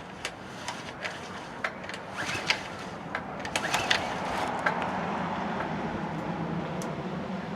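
A run of sharp clicks and knocks, as of hard objects being handled and set down, then a steady low rumble from about four and a half seconds in.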